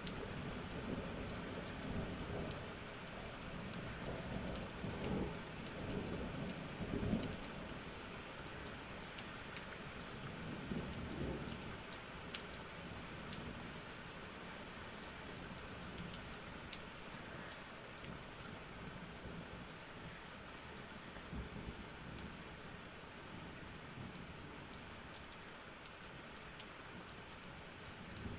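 Thunder rumbling low and rolling through the first dozen seconds, loudest about five to seven seconds in, then dying away. Steady rain is heard throughout, with scattered drops ticking.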